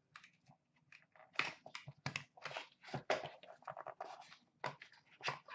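A small white cardboard card box being opened and handled: a string of short, irregular scrapes and rustles as the lid comes up and fingers dig through the packaging inside.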